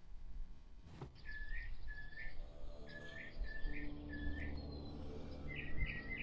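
A bird singing a run of clear whistled notes, each sliding down, first about two a second and then a quicker run near the end. A low steady hum comes in beneath from about halfway.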